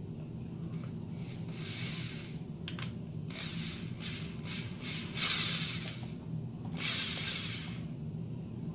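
Cordless drill driving screws into the back of a reptile rack in four short bursts, with a sharp click between the first two.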